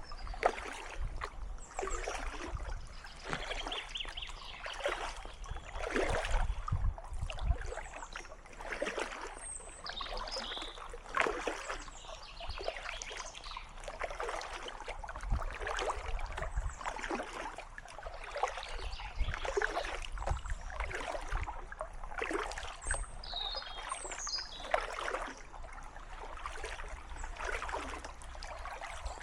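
Kayak paddle blades dipping and splashing in calm water, a stroke every second or two, with water trickling off the blades between strokes.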